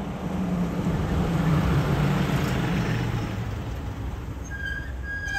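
A vehicle engine passes off to the side, growing louder about a second in and fading after about three seconds. Near the end a high beep sounds, first short and then longer.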